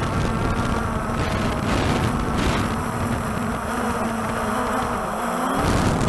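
Walkera TALI H500 hexacopter's motors and rotors buzzing, heard from its own onboard camera, with strong wind rumbling on the microphone. The rotors pulse as the drone fights the gusts to hold its position.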